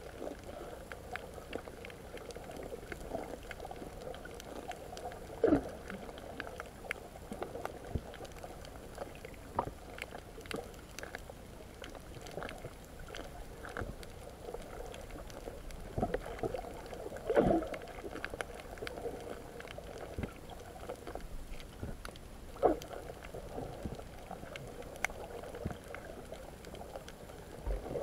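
Muffled underwater sound from a camera held below the surface: a steady bubbling, crackling wash of moving water, with a few louder gurgling bursts about 5 s, 17 s and 23 s in.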